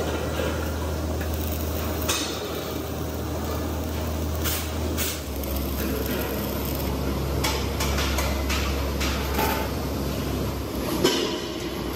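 Electric arc welding a steel valve guard onto an LPG cylinder: the arc crackles and spits over the low hum of the welding machine, with a few sharp clicks. The hum shifts about five seconds in.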